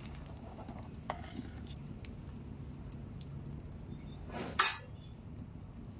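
A metal ladle clinking against a metal pan of curry cooking over a wood fire: a small clink about a second in and one loud, sharp metallic clatter about four and a half seconds in, over faint crackling from the fire.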